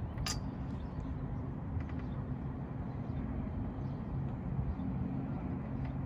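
Steady low outdoor rumble, with a single sharp click about a third of a second in.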